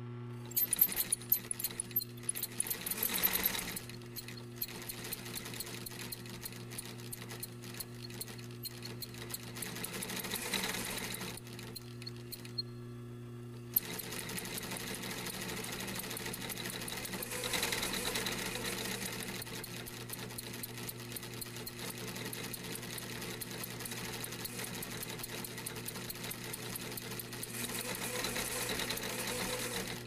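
Industrial sewing machine stitching at high speed, a dense rapid clatter over a steady hum. It eases off about halfway, gives a sharp click, then runs on without a break, swelling now and then.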